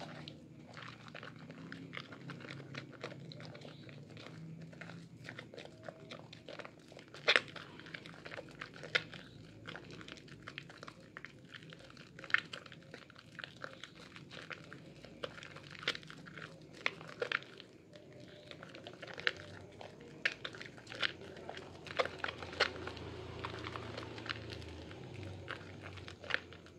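Hands squeezing and kneading soaked Lervia milk soap in thick lather: wet squishing with irregular sharp crackles and pops of foam, the loudest about seven seconds in.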